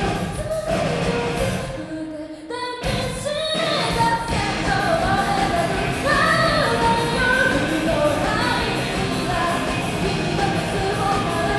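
Rock band playing a song with a lead singer. The band thins out briefly about two seconds in, then the full band comes back in under the vocal.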